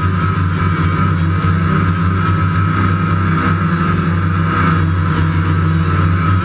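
DJI Phantom quadcopter's motors and propellers whirring steadily, heard close up from the camera mounted on the drone: a steady high whine over a low hum.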